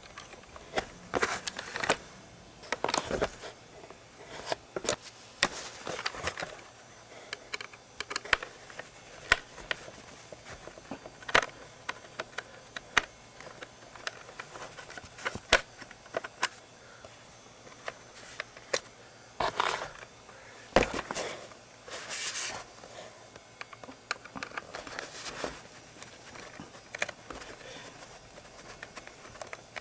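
A Dyson vacuum cleaner's motorised floor head being taken apart by hand: irregular clicks, taps and short scrapes of its plastic housing and parts being handled and pried. There are a few louder stretches of handling noise near the start and again about two-thirds through.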